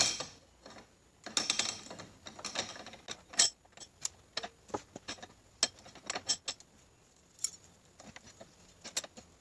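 Metal transmission parts clinking and clicking irregularly as they are handled and taken apart, with a sharp knock at the start.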